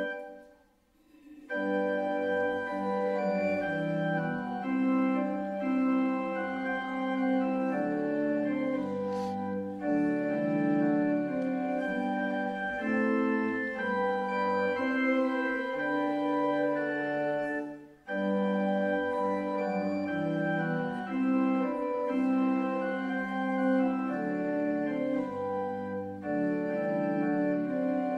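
Church organ playing a hymn tune in slow, steady chords, pausing briefly about a second in and again just past the middle between phrases.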